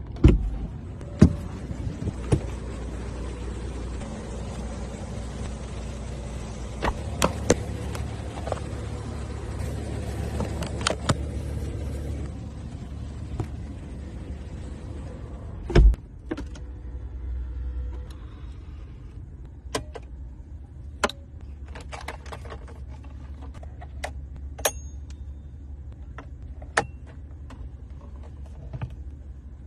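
Car cabin fittings being worked in a Rolls-Royce: a run of sharp clicks and knocks from knobs, latches and compartment lids. For the first part they sit over a steady motor hum, of the kind a power window makes. The loudest clicks come right at the start and about a third of the way through.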